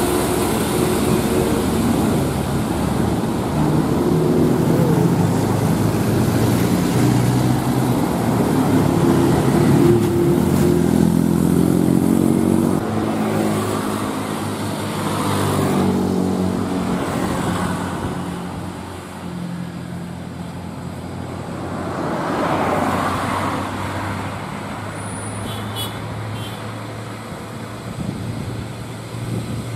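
Heavy diesel trucks labouring up a steep climb. First a loaded Scania container truck pulls away uphill, its engine note stepping up and down. After another vehicle passes, an Isuzu Giga container truck's diesel approaches with a steadier low note near the end.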